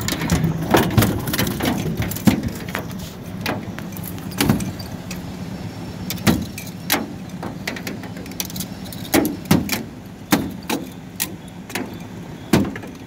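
About a dozen irregular, sharp knocks and thumps: a chinook salmon in a landing net on the floor of a metal drift boat being clubbed with a wooden fish bat, the net and fish knocking against the hull.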